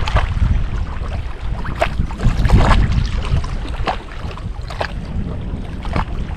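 Wind buffeting the microphone over choppy lake water, with small waves lapping against the angler's craft and a few short slaps or knocks spread through.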